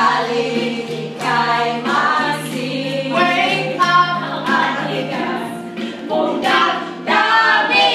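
A group of women singing a song together, over steady background music.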